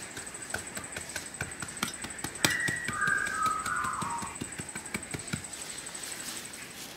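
A flat wooden stick scraping and prodding through loose, lumpy soil, a run of short irregular clicks and scratches. An animal call sounds about halfway through.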